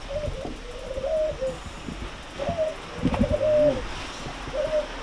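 A dove cooing, several short phrases in a row. A few low thumps come about three seconds in.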